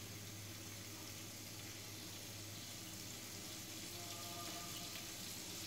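Minced garlic sizzling faintly in butter at the bottom of a large pot as it browns, a steady soft hiss over a constant low hum.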